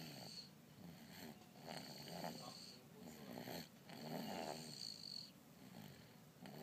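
Snoring during a nap, in a steady rhythm of about one snore every two seconds.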